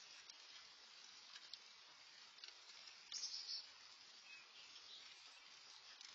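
Faint, steady hiss of light rain with a few scattered drip clicks, and a brief high chirp about three seconds in.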